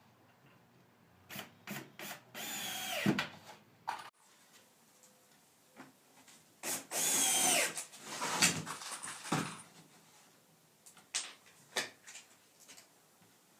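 Power drill driving 1.25-inch drywall screws into plywood: a few short trigger blips, then two longer runs, each dropping in pitch as the screw seats. Shorter bursts follow near the end.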